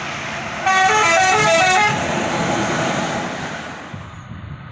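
Passing bus sounding a basuri telolet musical horn: a fast run of short notes stepping up and down for about a second, over road noise that fades as the bus goes by.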